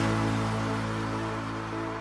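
Background music: a single held chord that slowly fades, following the end of a rhythmic beat.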